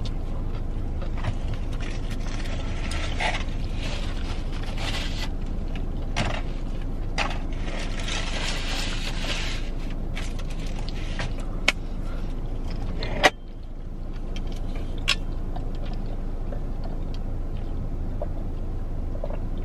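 Eating sounds: chewing and a paper napkin rustling, over a steady low hum inside a car. Scattered small clicks, with one sharper click about two-thirds of the way through.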